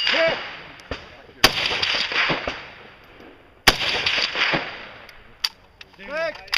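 Two loud rifle shots, about a second and a half in and just before four seconds, each echoing for more than a second off the rock quarry walls, with two fainter cracks between and after them.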